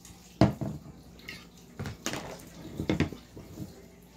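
A plastic bowl and plate clacking together as they are handled and set down, in a series of separate knocks, the loudest about half a second in.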